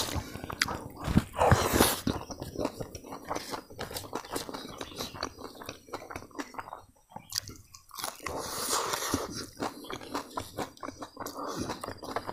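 Close-up chewing and crunching of crispy fried grasshoppers with rice: irregular crisp crunches and mouth sounds, with a short lull about seven seconds in.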